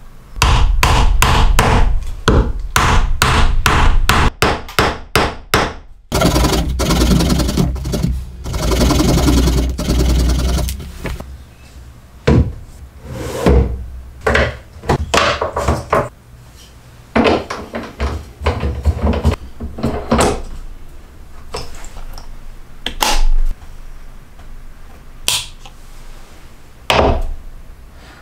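Hammer driving a wooden dowel into a stack of glued plywood discs: a quick run of blows that come faster and faster for several seconds. A few seconds of dense rough clatter follow, then scattered single knocks and clunks of parts being handled and fitted.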